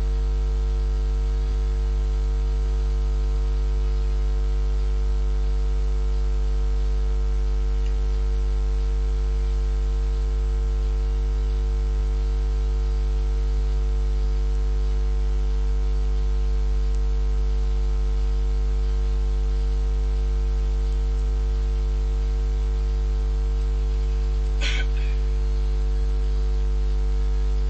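Loud, unchanging electrical mains hum, a low buzz with a ladder of overtones above it. A short, high-pitched blip cuts through near the end.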